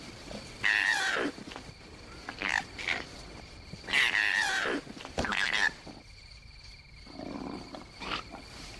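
Male koalas fighting, giving four harsh, high-pitched cries over the first six seconds, followed by a quieter, lower call near the end.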